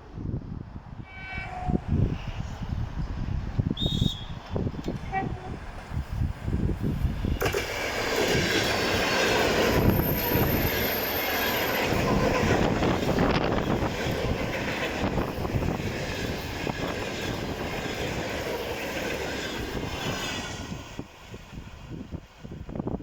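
ED4M electric multiple unit passing: a short horn note about a second in, then the rumble and rush of the train's wheels and cars builds sharply about seven seconds in, holds for some thirteen seconds and fades away.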